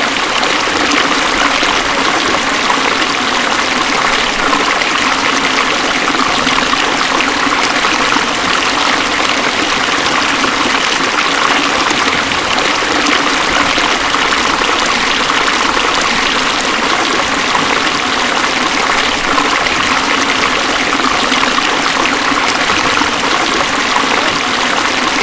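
Beas River water rushing in a steady, unbroken noise.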